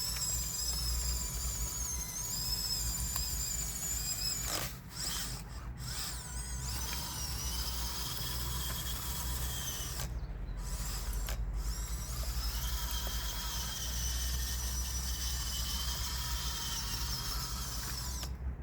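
Electric motors and gearboxes of an upgraded Huina 1554 RC bulldozer whining as it drives. The high whine shifts in pitch and drops out briefly about five seconds in and again about ten seconds in.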